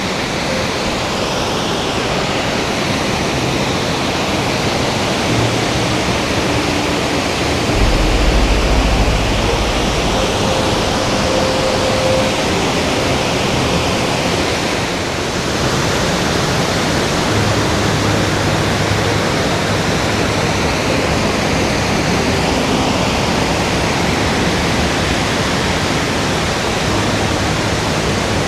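Waterfall: a steady, loud rush of falling water, with a brief low rumble about eight seconds in.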